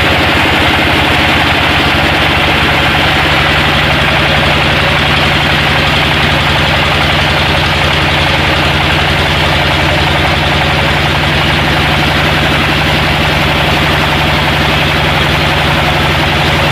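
Engine-driven sawmill machinery running steadily with an even engine hum.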